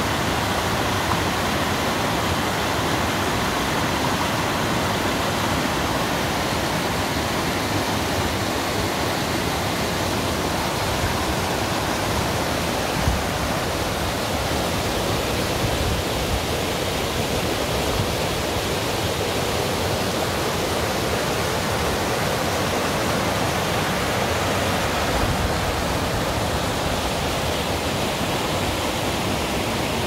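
Mountain stream rushing over boulders and small cascades: a steady rush of white water.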